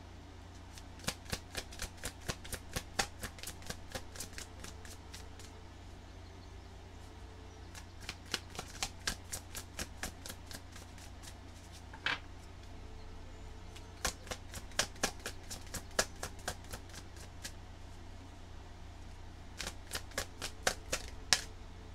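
A large tarot deck being shuffled by hand, the cards flicking against each other in quick runs of sharp clicks. There are four bouts of a few seconds each, with short pauses between them, before the next card is drawn.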